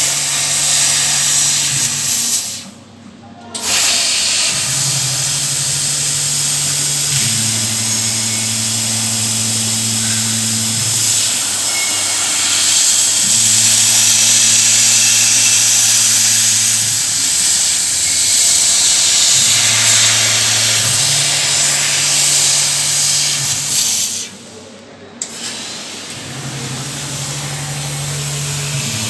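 CNC laser cutting machine cutting thin sheet steel: a steady, loud hiss of assist gas from the cutting head, under a low motor hum that steps between a few pitches every few seconds as the axes move. The hiss cuts out briefly twice, around three seconds in and again near the end.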